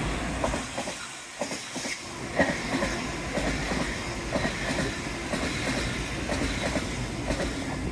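Train passing close by, a steady rumble with the wheels clicking over the rail joints; it falls away quickly near the end.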